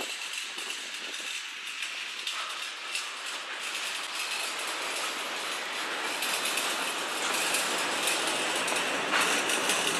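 Covered hopper cars of a freight train rolling past at close range, their steel wheels clicking and clattering over the rail joints under a steady rushing rattle that grows a little louder in the second half.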